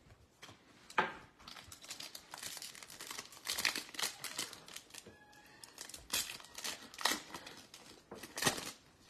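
Foil wrapper of a Topps baseball card pack crinkling and tearing as it is handled and ripped open, in a run of irregular crackles and rustles.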